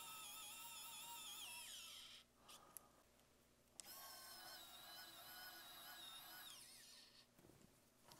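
Small electric screwdriver driving screws, its motor whining in two runs: the first stops about two seconds in, the second starts about four seconds in and stops near seven seconds, each ending with a falling whine as the motor spins down.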